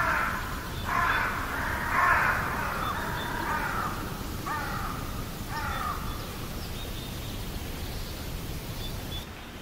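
A crow cawing: a series of about six calls in the first six seconds, the first three loudest and the later ones fainter and shorter, over a steady background hiss.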